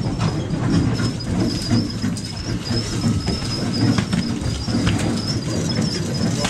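Steady low rumble of a boat's diesel engine running, with a thin high whine wavering above it and a few light knocks.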